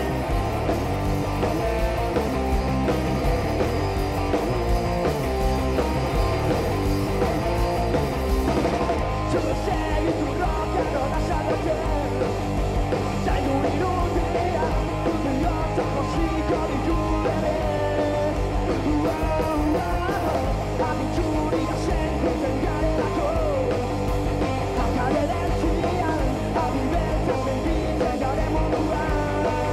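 Rock band playing live: distorted electric guitar, bass and drum kit, loud and continuous, with a voice singing over it.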